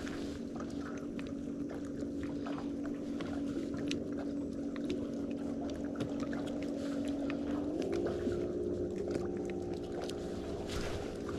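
A boat motor's steady hum, stepping up slightly in pitch about eight seconds in, with faint scattered clicks of handling.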